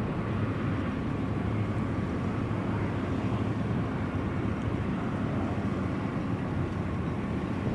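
Steady low rumble of wind on the microphone, even throughout with no distinct events.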